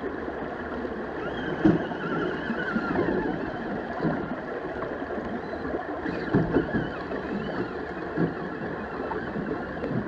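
Shallow creek water rushing and burbling over rocks, a steady wash of water noise, with a couple of brief louder splashy peaks about two and six seconds in.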